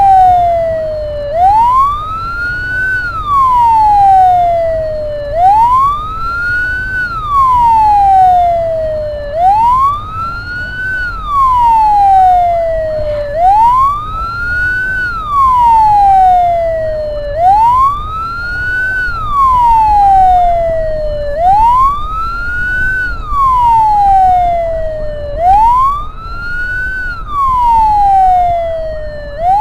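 Ambulance siren in a slow wail, each cycle rising quickly and falling slowly, about one cycle every four seconds, over a steady low rumble of vehicle noise.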